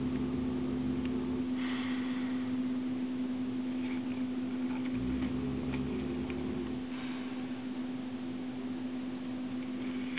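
A sleeping pet snoring: two long, low snores about five seconds apart, each ending in a short breathy exhale, over a steady electrical hum.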